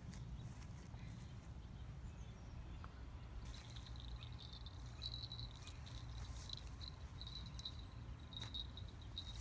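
Wind rumbling on the microphone, and from about three and a half seconds in a high, thin chirping that repeats in short runs.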